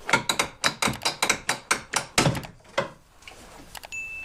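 Rapid plastic clicks and knocks, several a second for about three seconds, as the old driver's side mirror of a 2009 Ford F-150 is worked loose and pulled out of the door.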